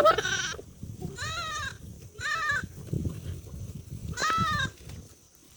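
Goat bleating: four short, wavering bleats, the last just after four seconds in, over a low rumbling noise.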